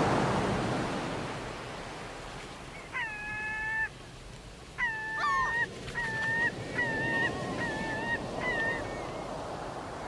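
Surf washing on a shore, swelling at the start and easing off, then a gull calling over the waves: two drawn-out cries followed by a run of shorter ones.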